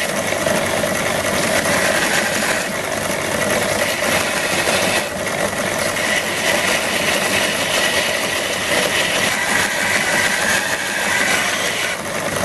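Small bench linisher (belt sander) running, with a steel bar held against the abrasive belt: a steady grinding hiss over the electric motor's hum. The belt is a broken one re-joined with glue at its overlapping seam.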